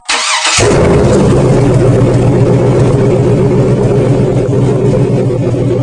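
Car engine running loudly and steadily, starting abruptly about half a second in.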